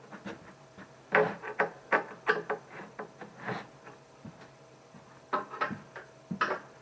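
Irregular sharp knocks and clacks of cabinet panels and parts being handled and set down, coming in clusters with short pauses between.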